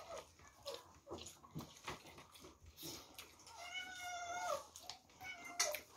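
A cat meowing once off-camera, one drawn-out call of about a second, steady and then dropping at its end, starting about three and a half seconds in. Around it are soft clicks of eating by hand from plates, with a sharper click shortly before the end.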